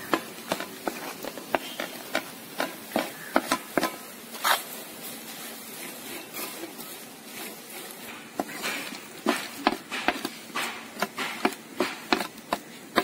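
Metal ladle scraping and knocking against a metal kadai as fried clams and coconut pieces are stirred in it, with irregular sharp taps throughout.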